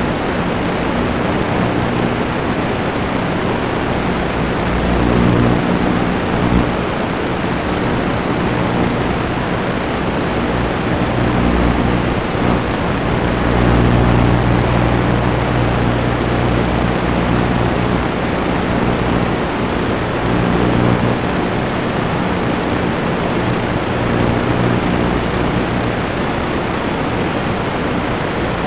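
An FPV quadcopter's motors give a steady hum under a loud, even hiss. The hum swells a few times as the quad manoeuvres.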